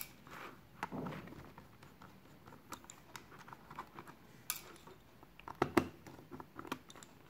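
Light plastic clicks and taps from handling a Casio FX-570VN Plus calculator as it is being opened up. There is a sharper click about four and a half seconds in and a few more just under six seconds in.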